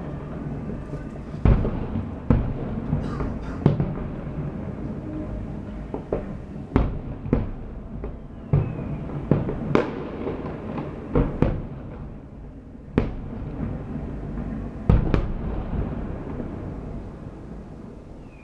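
Fireworks display: aerial shells bursting in sharp bangs every second or so, some in quick pairs, with brief crackle. The bursts thin out near the end.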